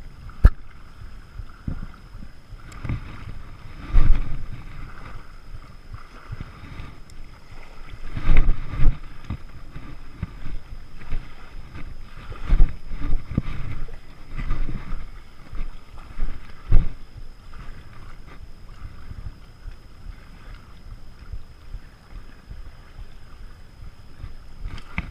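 Wind buffeting the camera microphone in repeated gusts, with a steady background hiss of lake water lapping at the shoreline.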